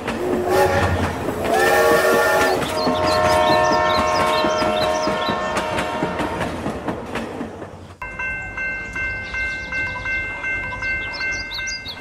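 Toy steam train whistling in long held tones over a fast, rattling clickety-clack, with a different steady whistle chord starting abruptly about eight seconds in.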